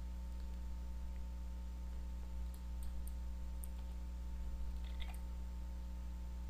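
Steady low electrical hum with a handful of faint computer mouse clicks between about two and a half and five seconds in.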